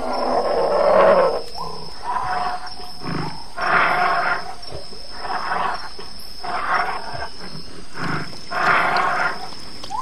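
Brown bear growling: a loud rough growl at the start, then a string of shorter rough growls at about one a second.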